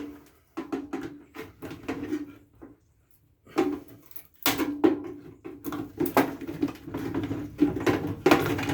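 Irregular clicks, knocks and clatter of metal and plastic parts being worked loose and handled as a microwave oven's fan motor is cut free and pulled out, with a brief pause about three seconds in and busier clattering after it.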